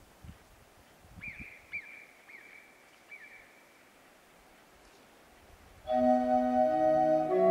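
Quiet outdoor sound with faint low wind gusts and a few brief high chirps. About six seconds in, church pipe organ music comes in suddenly, a loud sustained chord of many held notes.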